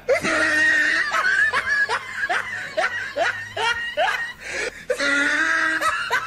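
Laughter: a run of short, repeated laughs with a high-pitched voice.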